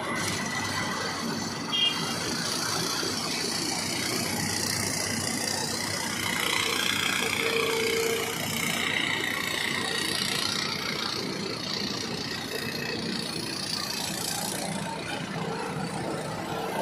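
Tata Hitachi excavator's diesel engine running steadily, with a brief sharp knock about two seconds in and a high whine wavering in pitch midway.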